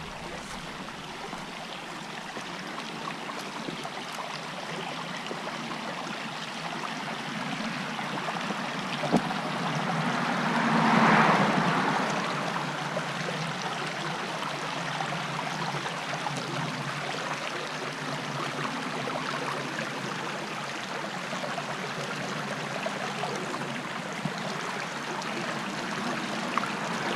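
Small creek running steadily. About a third of the way through, a car drives past, swelling and fading over a few seconds.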